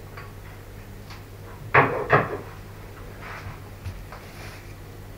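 Two sharp knocks a few tenths of a second apart, about two seconds in, as small metal model-engine parts are handled and set down on a hard worktop, followed by fainter handling noise.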